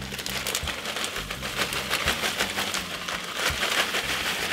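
Riced cauliflower pouring from a plastic bag into a cast iron skillet of ground pork: a dense, steady patter of small pieces landing, with some rustling of the bag.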